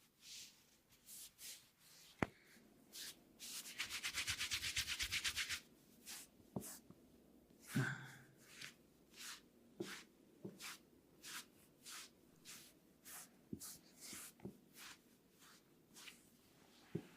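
Hands rubbing and stroking skin and hair in a massage: short repeated rubbing strokes, with a quick run of about ten strokes a second partway through and a few sharp clicks scattered among them.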